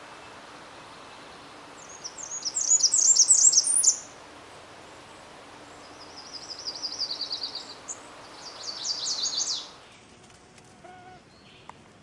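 Blackburnian warbler singing: three very high, thin songs of quickly repeated notes, the first about two seconds in, the second a slightly falling series and the third near the end, over a steady hiss of background noise.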